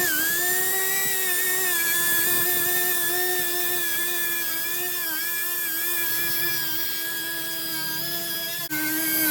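Power tool running with a steady high whine, its pitch dipping briefly now and then as it takes load on the sheet-metal hood. Near the end the sound cuts out for an instant and the whine carries on at a slightly lower pitch.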